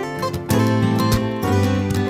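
Background music led by a strummed acoustic guitar, playing chords at a steady pace.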